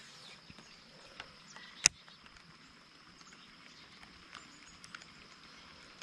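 Quiet lakeside ambience with a faint steady high-pitched hum and a few small ticks and clicks, the loudest a single sharp click about two seconds in.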